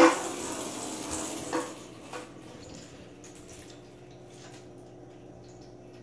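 A small plastic ball rolling across an empty acrylic bathtub: a hiss that fades away over the first two seconds, with a couple of light taps, then only faint room noise.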